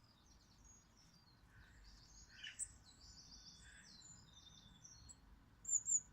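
Small songbirds chirping and twittering in quick, high-pitched calls, which the listener takes for a coal tit. A louder pair of sharp high notes comes near the end.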